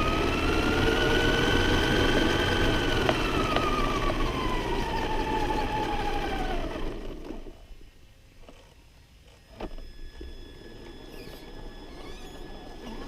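Remote-control monster truck's motor whining as it drives, with a rough rumble underneath; the whine rises in pitch, holds, then falls away as the truck slows. About seven seconds in it stops, leaving a faint hiss and a single click.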